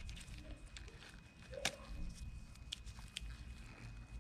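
Scattered small clicks and taps of metal parts being worked loose on a seized fishing reel during disassembly, with one sharper click about one and a half seconds in. The parts are stuck together from corrosion.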